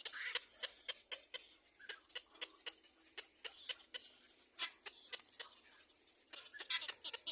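Baby birds in a nest calling: rapid, short, sharp begging chirps, several a second. They come in busy runs at the start and again near the end, with a quieter lull before the last run.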